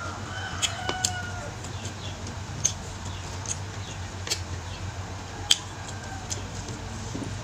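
Close-miked eating sounds: chewing and mouth smacks with a few sharp clicks, the loudest about two and a half and five and a half seconds in. A rooster crows faintly in the background during the first second and a half, over a steady low hum.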